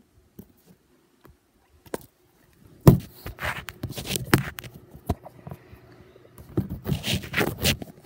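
Close handling noise: scraping and rustling mixed with sharp clicks and knocks, in two spells. The first starts with a loud knock about three seconds in, and the second comes near the end.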